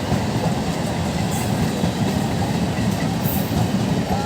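Electric multiple-unit (EMU) local train running past, its wheels rumbling steadily on the rails.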